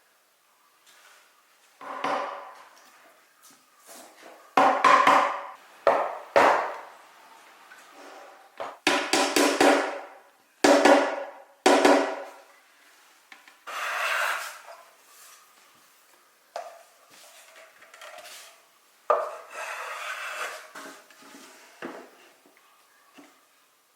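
Wood being worked by hand: about a dozen irregular rubbing and scraping strokes of wood on wood, some short and some drawn out over a second or so.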